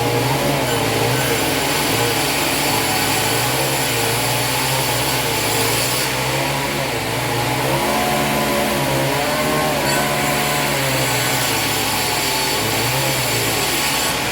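Sawmill engine running steadily, its pitch rising and falling slightly with changing load.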